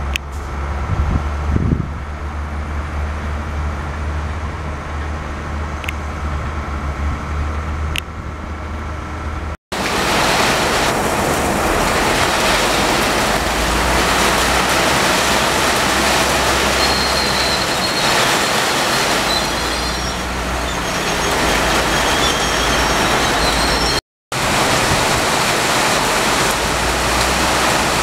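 Passenger train running past on the tracks, a steady low rumble with a couple of sharp clicks, until a sudden cut about ten seconds in. After the cut comes a loud, even hiss of heavy rain over another passing train, with brief high squeals now and then. A second short cut comes near the end.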